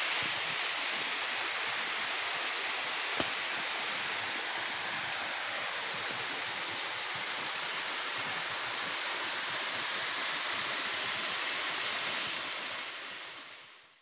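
Small waterfall pouring down rock into a shallow pool: a steady rush of water, fading out at the end.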